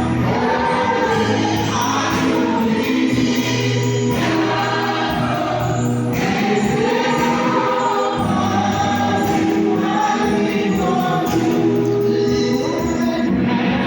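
A choir singing gospel music, with held bass notes underneath.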